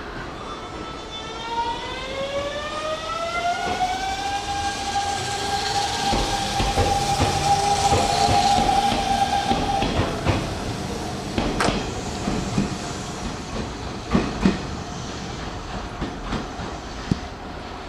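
Hanshin electric train accelerating past: the whine of its traction motors rises in pitch over the first few seconds, then holds steady as the train grows louder. In the second half the wheels clack over rail joints in sharp knocks.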